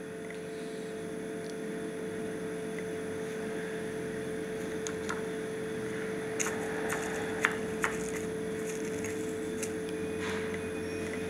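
Steady room hum with one held tone throughout. From about six seconds in come a run of small sharp clicks and scrapes as a cigarette is stubbed out in an ashtray full of butts.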